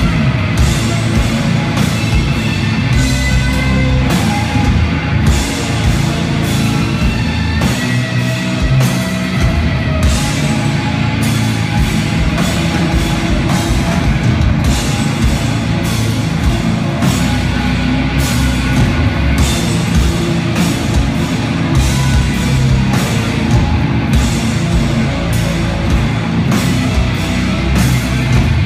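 Doom metal band playing live and loud: distorted electric guitars and bass over a drum kit, with regular drum and cymbal hits.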